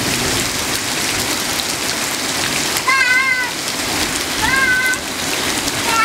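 Steady rain falling on the ground and a puddle. A small child gives two short high-pitched vocal calls, each rising then holding, about three and four and a half seconds in.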